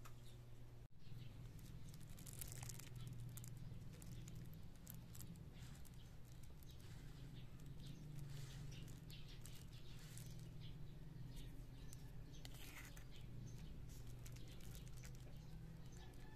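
Faint low background hum with scattered light clicks and ticks.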